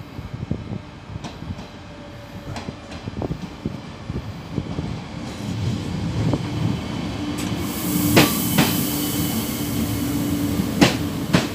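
Bombardier Omneo Premium (Regio 2N) double-deck electric train running into the platform, its wheels clicking over rail joints and growing louder as it passes close. A steady hum and a hiss come in about seven seconds in.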